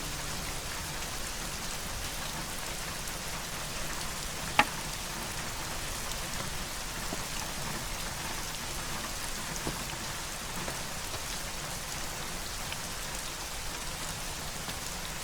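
Steady rain falling, an even hiss with no letup. A single sharp click stands out about four and a half seconds in.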